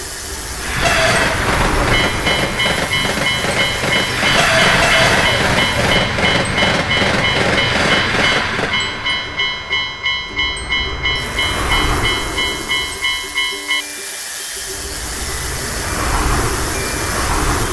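Japanese level-crossing alarm ringing 'kan kan' in quick repeated dings, about two to three a second, while an electric train rumbles and clatters over the crossing. The bell cuts off about 14 seconds in. Another train's rumble swells up near the end.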